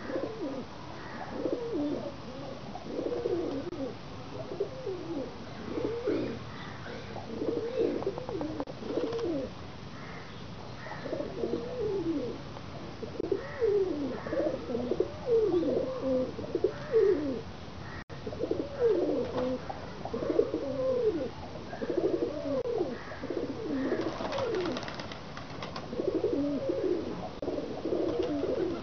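Several domestic pigeons cooing continuously, their low, rolling coos repeating and overlapping one another. A brief rustling noise comes in about three-quarters of the way through.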